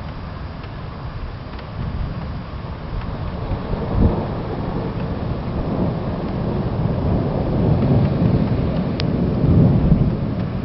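Thunder rolling in a long low rumble over steady rain, with a sharper crack about four seconds in. The rumble swells toward the end.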